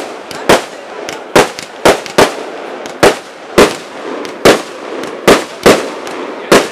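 Firework display: aerial shells bursting in a rapid, uneven series of sharp bangs, about eleven in under seven seconds.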